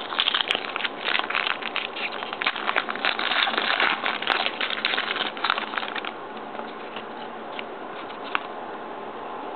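Trading cards and a 1998-99 Upper Deck Choice hockey pack being handled: dense crinkling and rustling with many small clicks, dropping to a faint hiss with a few soft clicks after about six seconds.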